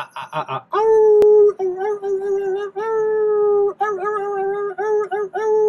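Drawn-out 'oooh' howling wails held on one high pitch, each sagging slightly at its end: a few quick short hoots at the start, then three long wails of about a second each with shorter ones between.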